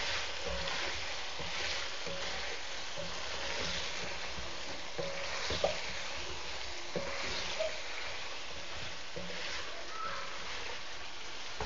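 Chicken-neck curry sizzling in a metal wok in its final stage of cooking, while a wooden spatula stirs and scrapes through it. A few short knocks of the spatula on the pan, the loudest about halfway through.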